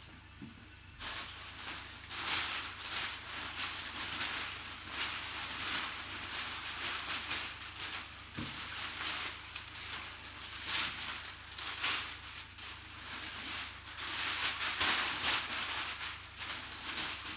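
Rustling, scraping and crinkling of cardboard and packaging as a sealed memorabilia box is handled and opened, starting about a second in and going on unevenly.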